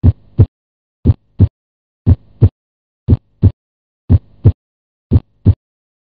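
Normal heart sounds as heard on auscultation: a steady lub-dub, S1 from closure of the AV valves followed by S2 from closure of the semilunar valves, at about one beat a second.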